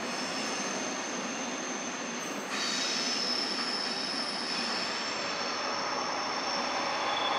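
Approaching train's wheels squealing on the rails in several steady high pitches over a continuous rolling rumble. The squeal changes abruptly and grows a little louder about two and a half seconds in.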